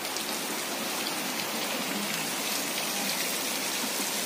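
Heavy rain pouring down, a steady dense hiss of rain falling on the ground and foliage.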